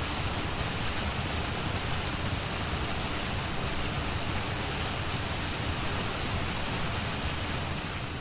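Steady rushing of falling water, a waterfall's even noise, fading out near the end.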